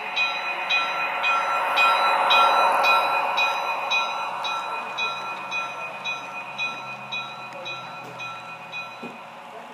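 Model train rolling close past on its track: the Athearn Genesis F7 locomotive's electric motor whining at a steady pitch over the running noise of the wheels, with a regular clicking about two to three times a second. The sound is loudest as the locomotive goes by about two seconds in, then fades as the piggyback flatcars roll past.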